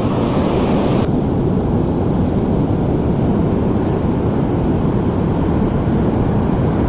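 Ocean surf with wind buffeting the microphone: a steady low rush. The higher hiss drops away suddenly about a second in.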